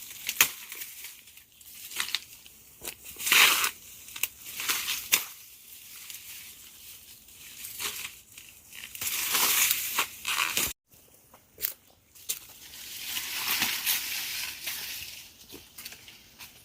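Irregular bursts of crunching and tearing, with sharp cracks in between, as of something being crushed and torn apart.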